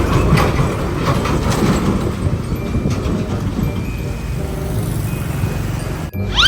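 Heavy road traffic with a steady low engine rumble from large vehicles passing. Near the end the sound briefly drops out, then a short rising whistle sounds.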